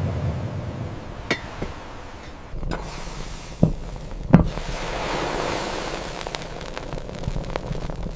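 Irregular sharp knocks and clicks, the loudest two about three and a half and four and a half seconds in, followed by a run of small rapid ticks over a steady rushing hiss.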